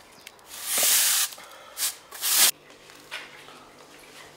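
Broom bristles sweeping across stone patio paving: three brushing strokes, one longer and two short, the last cut off sharply, followed by a faint steady low hum.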